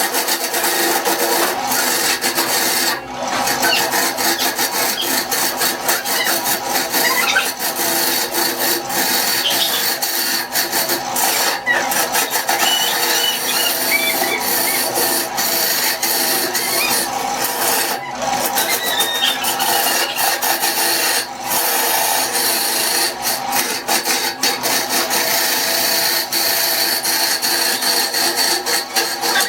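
Woodworking tools on wood: continuous scraping and grinding with a steady stream of small clicks.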